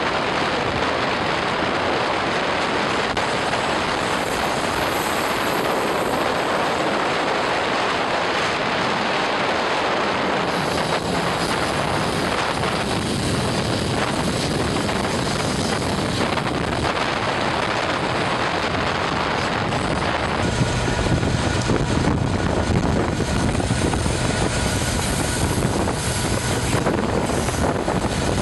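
KiwiRail DX-class diesel-electric freight locomotive running past, its engine drone and the train's wheel and rail noise forming a steady wash of sound. About two-thirds of the way through, the sound turns deeper and a little louder, with a steady whine added, as a working locomotive draws close.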